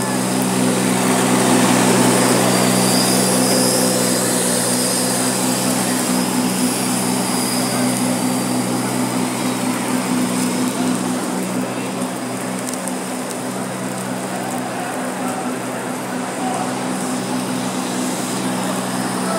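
Ride-on floor scrubber running with a steady motor hum as it drives over a wet stone floor. The hum is loudest for the first few seconds while the machine is close, then quieter.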